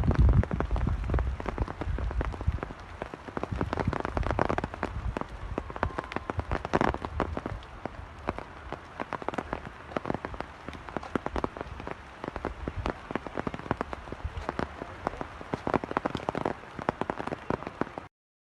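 Heavy rain falling, with a dense patter of individual drops striking close by. The sound cuts off abruptly near the end.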